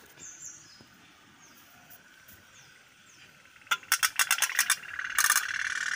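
Toy tin pop-pop steam boat's engine: quiet at first, then a string of sharp clicks a little over halfway through that turns into a fast, steady putter near the end.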